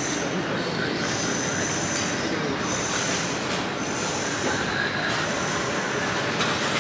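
Steady, busy city street din with high-pitched squealing tones that come and go every second or so.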